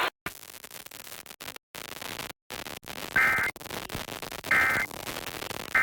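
Radio static hiss with brief dropouts, then the Emergency Alert System end-of-message code: short, loud two-tone digital data bursts about a second and a half apart, two in full and a third starting at the end, marking the close of the flash flood warning.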